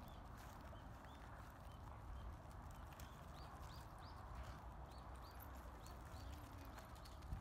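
Faint footsteps and dog paws crunching and rustling on a wood-chip yard, with many small clicks. A run of short, high chirps repeats throughout.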